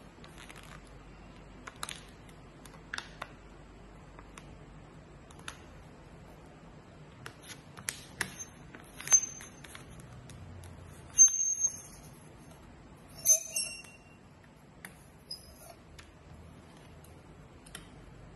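Sheet of paper being handled and creased on a glass tabletop, with scattered soft rustles and clicks. Metal scissors click and snip against the paper several times, the loudest and sharpest with a brief metallic ring about a third of the way in, at the middle, and a little later.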